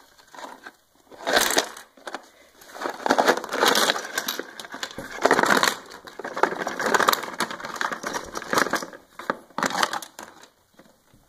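Small plastic Littlest Pet Shop figures and stands clattering and tumbling out of a cardboard shipping box as it is tipped and shaken, in repeated bursts of clicks mixed with cardboard scraping and rustling. The sound dies down near the end.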